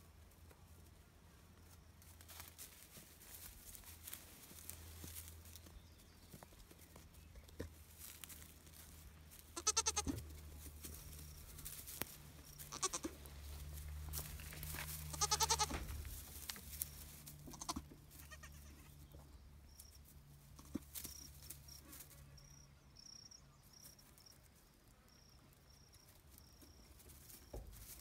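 Nigerian Dwarf goats bleating: three bleats about ten, thirteen and fifteen seconds in, the last the longest, with light rustling and shuffling of hooves in hay between them.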